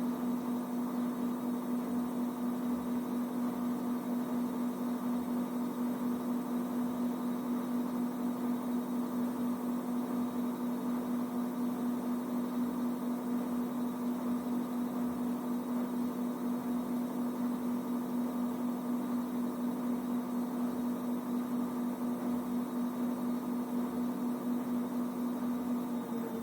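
A steady electric hum with one strong low tone and its overtones, pulsing slightly about three times a second.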